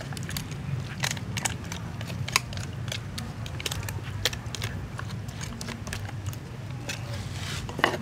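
Metal spoon clicking and scraping against a metal wok while marinade is spread over a raw duck: irregular sharp clicks, with a louder cluster near the end.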